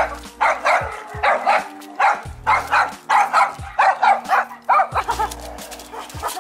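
A dog barking rapidly and over and over, about three barks a second, growing fainter after about five seconds.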